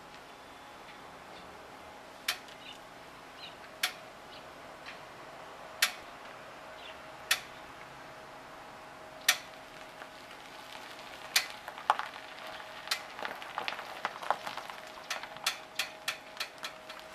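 A Honda Vezel reversing slowly, making an abnormal sharp clicking noise over a faint steady hum; the noise has appeared since the car's second recall repair. The clicks come singly every one and a half to two seconds at first, then faster and closer together from about eleven seconds in.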